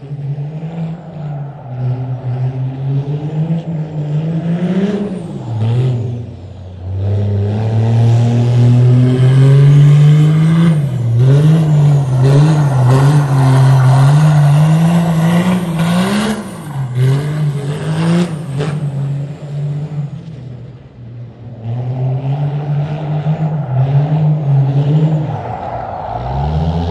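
Diesel Dodge Ram pickup, built to over 1400 horsepower, lapping a dirt oval with its engine revving up and down again and again. It grows loud as the truck comes past close by through the middle, then fades as it moves away.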